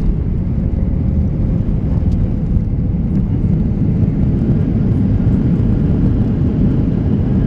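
Boeing 737-800 cabin noise while taxiing just after landing: a steady low rumble of the CFM56 engines at idle and the wheels rolling on the pavement, heard through the fuselage beside the wing. A faint thin whine fades out in the first couple of seconds.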